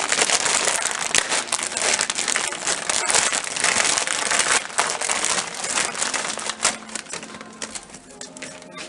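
Crinkling and rustling of plastic packaging being handled to get power-supply adapter cables out, a dense crackle full of small clicks that dies down after about seven seconds.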